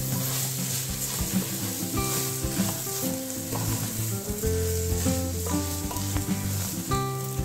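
Masala and basmati rice sizzling in a pressure cooker as a spoon stirs and scrapes through them, with scattered clicks of the spoon against the pot. Background music with held notes plays underneath.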